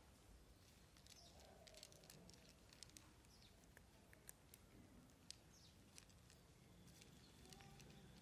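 Near silence, broken by faint, scattered clicks of two cats crunching dry kibble from plates.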